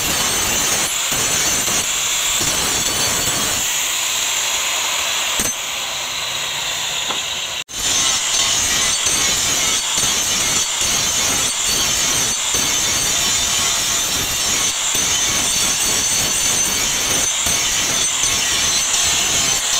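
Angle grinder with an abrasive flap disc grinding the steel blade of an old rusty meat cleaver: a steady, high hissing grind of abrasive on metal, breaking off for a moment about eight seconds in.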